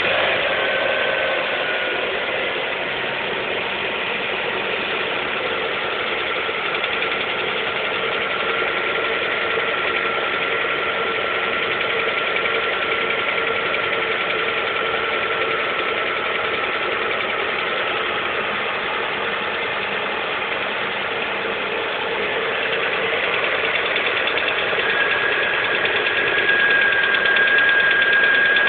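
Lada Priora's VAZ-21127 1.6-litre 16-valve four-cylinder engine running cold just after starting, with a knock that the owner cannot account for at 5,000 km. A steady high whine comes in and the engine gets slightly louder about 25 seconds in.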